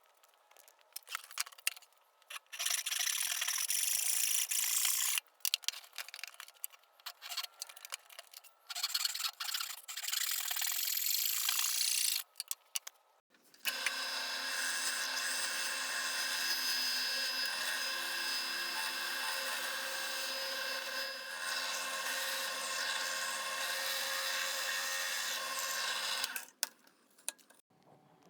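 Workshop tools working oak. For the first half, stop-start bursts of hissy tool-on-wood noise come with short gaps between them. Then, about halfway in, a power tool runs steadily with a constant whine for about thirteen seconds and stops shortly before the end.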